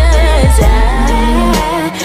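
Pop song with a woman singing over deep bass notes that slide down in pitch.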